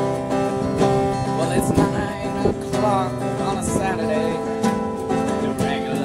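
Acoustic guitar strummed and picked in a live solo performance, steady chords ringing through the whole stretch.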